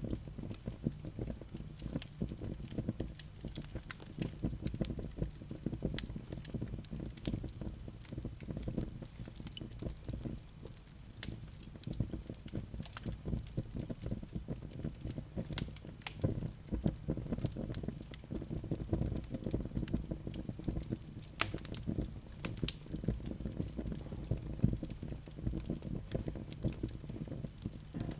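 Wood fire burning in a fireplace: many irregular sharp crackles and pops over a steady low rumble of the flames.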